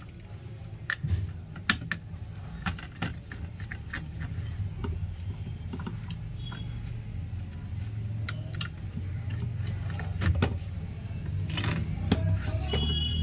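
Scattered small clicks and scrapes of a screwdriver and metal parts as a laptop's heatsink and fan assembly is worked loose from the motherboard, over a steady low hum.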